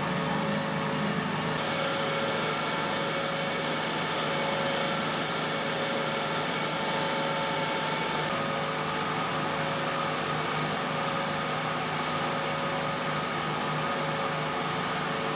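Wabeco D6000 lathe drive running at about 3,000 motor rpm, spindle near 3,100 rpm: a 3 kW three-phase motor on a frequency inverter turning the spindle through belts and the countershaft. It makes a steady whir with several high-pitched whining tones.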